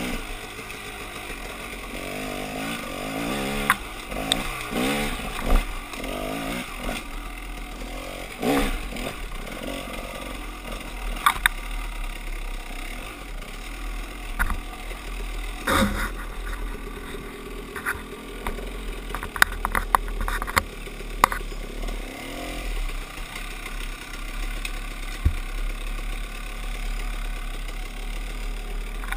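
Dirt bike engine being ridden on rough single track, its revs rising and falling with the throttle. Scattered sharp knocks and clatter run through it.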